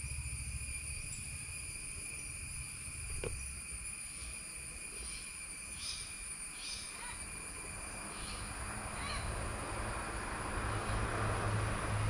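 A bird giving a series of about seven short, high call notes over a steady, high insect drone. There is one sharp click a few seconds in.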